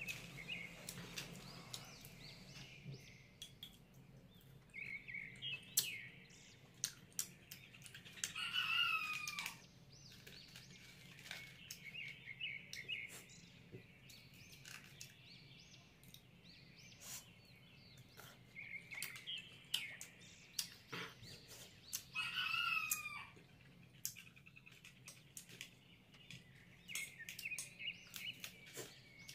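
Birds chirping in the background, with two louder falling calls, one about nine seconds in and another about 23 seconds in. Soft clicks and chewing from someone eating are scattered throughout.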